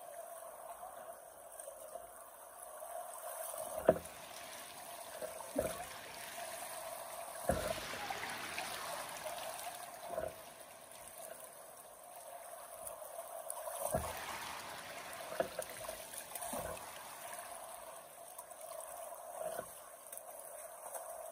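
River water running and trickling, with a few short, sharp knocks scattered through it, the loudest about four seconds in.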